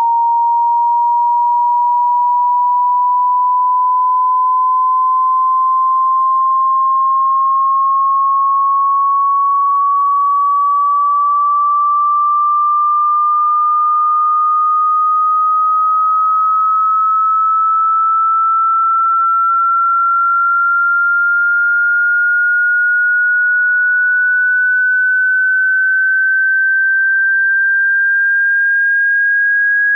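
A single pure sine tone rising slowly and evenly in pitch, from a little under 1,000 hertz to about 1,600 hertz, at a steady level: the middle of a 20 Hz to 20 kHz hearing-test frequency sweep.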